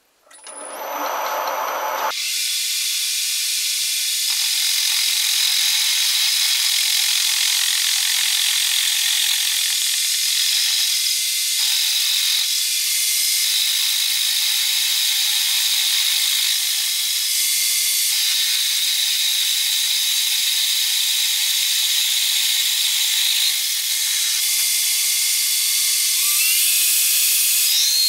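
Metal lathe boring out the inside of a cast aluminium billet with a boring bar, giving a steady high cutting hiss with a thin whine over it. It starts about two seconds in.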